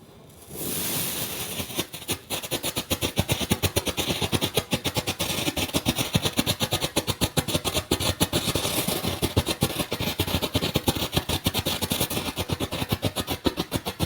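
Photo flash firecracker going off. It lights with a hiss about half a second in, then gives a rapid, continuous crackle of sharp pops, about ten a second.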